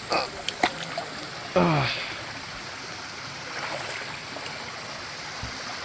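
Shallow river water flowing steadily over rocks, with a few sharp clicks early on.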